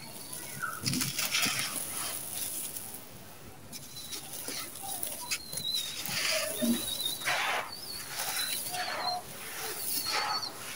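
Dry sand-cement chunks crushed and crumbled in bare hands: gritty crunching and the hiss of dry powder and grit pouring and sifting between the fingers, in a series of separate strokes.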